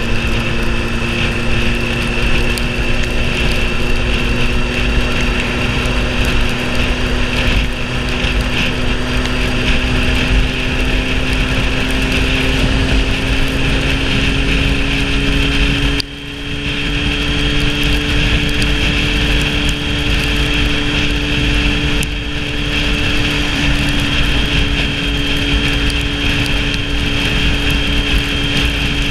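Sport motorcycle engine running at a steady cruise, its note climbing slowly as the bike gathers speed, under a constant rush of wind and wet-road noise. About halfway through the sound dips briefly as the throttle eases, then picks up again slightly higher.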